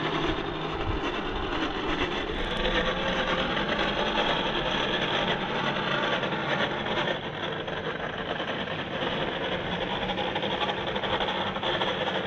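Radio-controlled scale crawler driving: its small electric motor and geared drivetrain run steadily with a whirring mechanical noise.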